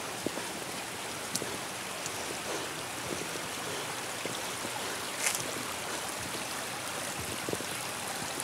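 Shallow mountain stream trickling steadily over stones, with a few faint clicks of footsteps on the wet rocks.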